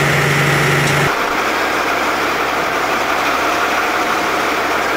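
A DB VT 08 diesel trainset standing at a platform with its engines idling: a steady engine noise. Before that, a steady low hum cuts off abruptly about a second in.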